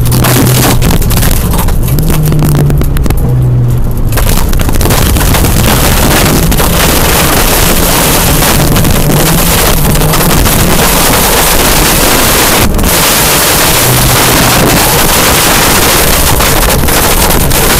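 Rally car at speed on a loose gravel stage, heard from inside the cabin: the engine note repeatedly climbs and drops over a dense, constant rush of tyre, gravel and wind noise.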